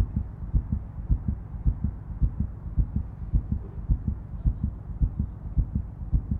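Heartbeat sound effect: a quick, even run of deep thuds, about three a second.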